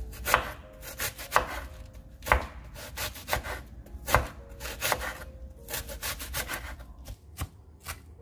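Chef's knife shredding a head of green cabbage on a wooden cutting board: repeated slicing strokes, with a sharper knock of the blade on the board about once a second.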